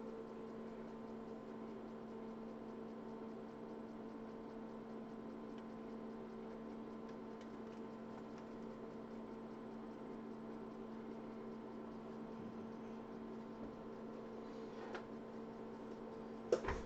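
Faint steady electrical hum, with a single sharp click near the end.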